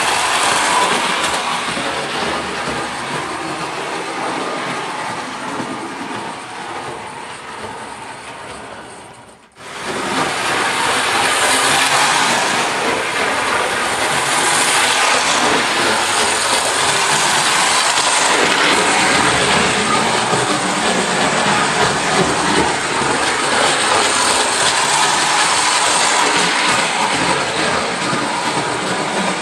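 Lionel 1588 Torpedo clockwork tinplate locomotive running on O gauge track: the wound spring motor whirring and the wheels clattering over the rails, its speed held steady by a centrifugal governor. The sound fades over the first several seconds and breaks off abruptly about nine and a half seconds in, then comes back louder and steady.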